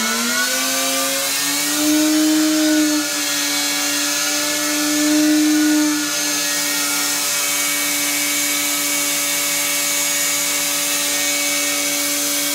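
2x72 belt sander driven by a 24,000 RPM spindle motor, its hum rising in pitch over the first second or so as it speeds up from half to three-quarter speed, then running steady. The tone swells louder twice, around two and five seconds in.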